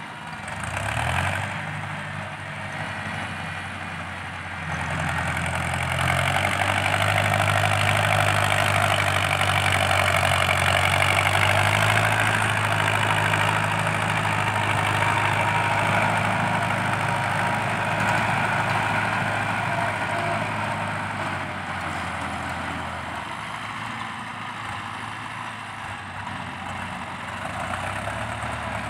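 Ford 6640 tractor's diesel engine working hard under load, pushing soil with its front blade, with a loud, harsh exhaust note. It grows louder as the tractor comes close about five seconds in and fades again after about twenty seconds.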